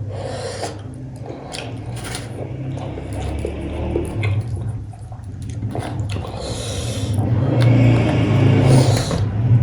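Close-up eating sounds: wet chewing and several short slurps and sucks while eating cooked goat head meat.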